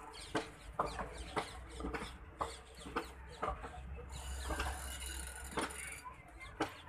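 Wheels of passing Indian Railways sleeper coaches clicking over rail joints, about two sharp clicks a second, over a low steady rumble of the moving train.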